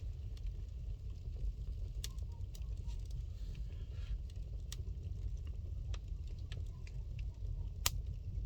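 Wood fire burning in a fireplace: scattered sharp crackles and pops at irregular times over a steady low rumble, with one louder pop near the end.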